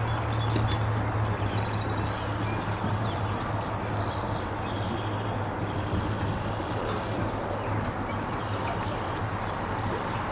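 Open-air ambience: a steady rushing noise with a low hum underneath, and small birds chirping, one clear descending call about four seconds in.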